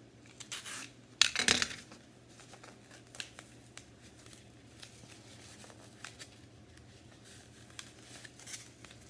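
A utility knife slitting the plastic wrapping on a block of green floral foam, then the wrap being torn and crinkled off by hand, with the loudest rip about a second and a half in and lighter rustling and clicks after.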